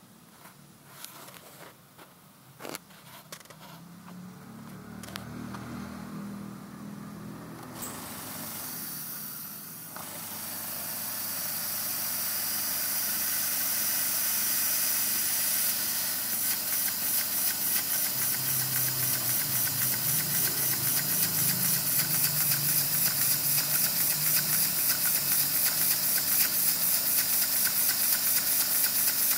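Homemade scrap-built engine, a small steam-engine design driven by compressed air from a compressor, starting up: a few clicks, then air hissing louder from about eight seconds in. From about sixteen seconds in it runs steadily with a regular pulse of about three beats a second over the hiss.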